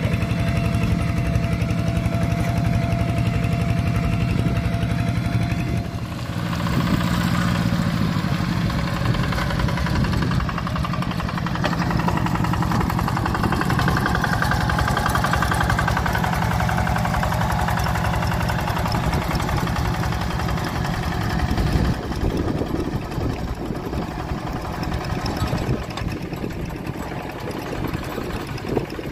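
Single-cylinder diesel engines of two-wheel hand tractors running steadily under load while working a flooded rice paddy. About six seconds in the steady hum gives way to a noisier, fuller engine sound from a second tractor.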